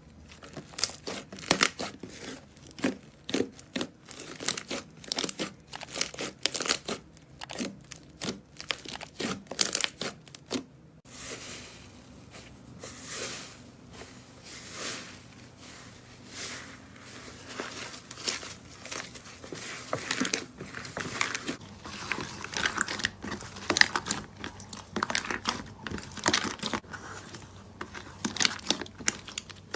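Slime being squeezed, poked and stretched by hand, making quick sticky clicks and crackles. About eleven seconds in the sound changes to softer, longer pops, which thicken into dense crackling from about twenty seconds on.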